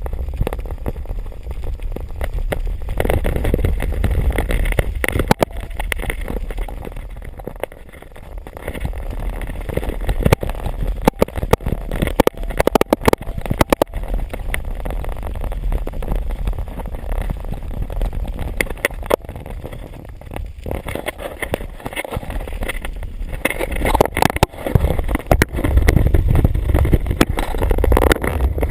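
Riding an electric trike over rough ground: wind rumbles on the microphone of a camera held in the rider's hand, with frequent knocks and rattles from the bumps.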